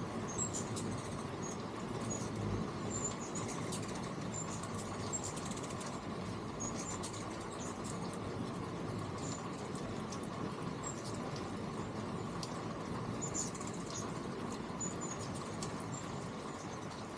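Hummingbirds giving many short, high chip notes scattered through, over a steady background hiss.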